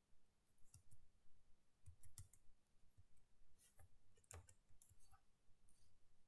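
Near silence broken by faint, irregular clicks from a computer mouse being moved and clicked.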